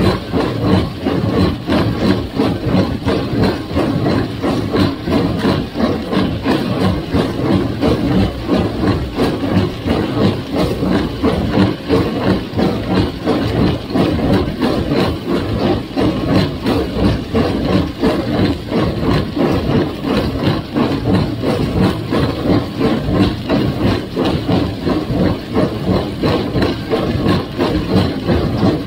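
1958 Farmall 350 gas tractor engine running steadily, driving a John Deere 348 square baler, with an even, rapid pulsing from the baler's working parts.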